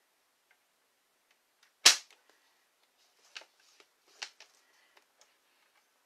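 Stampin' Up! paper trimmer being used to score cardstock: one sharp click about two seconds in, then two fainter clicks and a few light ticks as the paper and scoring blade are worked along the trimmer.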